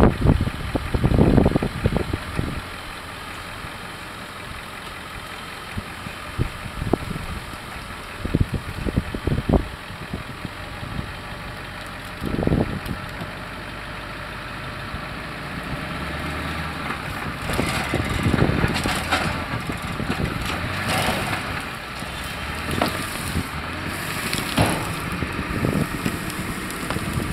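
Ford F250 pickup engine running steadily near idle while snigging a log, with scattered low thumps. In the second half a louder, rougher crackling noise builds over the engine.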